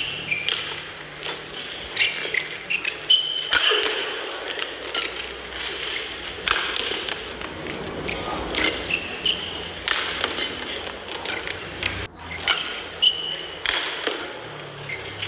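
Badminton rally: rackets striking the shuttlecock in sharp hits at irregular intervals, with court shoes squeaking on the mat as the players lunge and push off.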